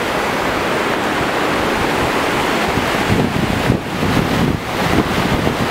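Wind buffeting the camera microphone over a steady rushing hiss, turning gustier with low rumbling from about three seconds in.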